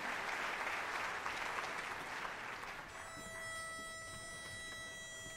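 Audience applause dying away, then a pitch pipe blown for about three seconds: one steady held note that gives the chorus its starting pitch.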